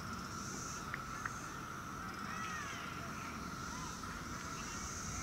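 Outdoor ambience: birds chirping and calling in short scattered notes, over a steady high-pitched drone that swells and fades about once a second and a low rumble.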